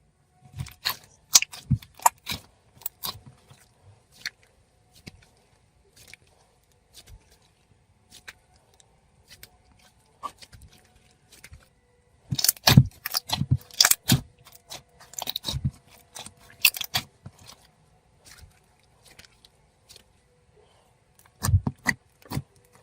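Sizzly, fluffy clay slime being squeezed and poked by hand, crackling and popping in quick clusters. The clusters are loudest about halfway through and again near the end.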